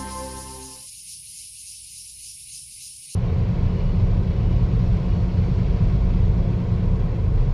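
Background music fades out into a faint hiss. About three seconds in, a sudden cut to heavy rain, a loud steady downpour with a deep rumble under its hiss.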